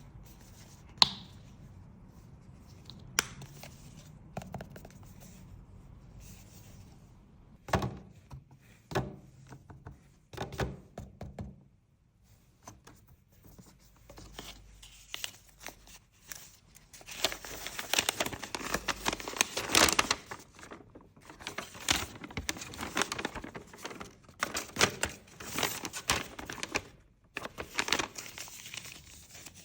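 Cosmetics packaging being opened by hand: a few sharp taps and clicks in the first half, then a long stretch of crinkling and tearing of wrapping through most of the second half.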